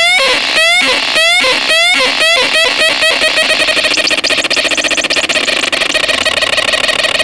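Electronic synthesizer playing repeated steep upward pitch sweeps, about two a second at first, that speed up until they merge into a fast, buzzing warble about three seconds in.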